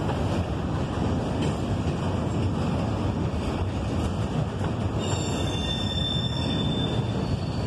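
Double-stack intermodal train rolling past, its well cars giving a steady rumble of wheels on rail. About five seconds in, a high-pitched metallic squeal from the wheels joins in.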